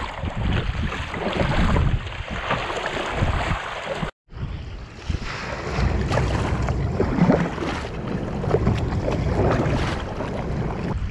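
Wind buffeting the microphone over choppy sea water splashing and lapping around a paddled kayak. The sound cuts out completely for a moment about four seconds in, then the wind and water go on.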